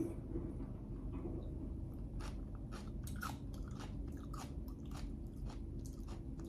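A person chewing crunchy food close to the microphone, with irregular crisp crunches every half second or so.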